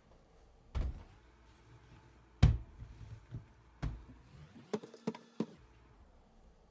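Hands and a rope of dough knocking on a textured stainless steel tray while the dough is twisted: a few dull knocks, the loudest about two and a half seconds in, then a quick run of light taps around five seconds in.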